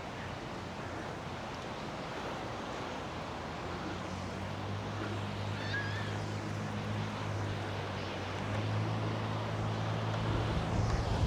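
Surf and wind at the shore, with a steady low engine drone coming in a few seconds in and holding on. Wind buffets the microphone near the end.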